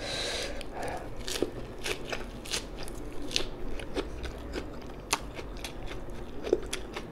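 A person biting into and chewing a mouthful of food: a crunching bite at the start, then steady chewing with many short, sharp crunches and mouth clicks.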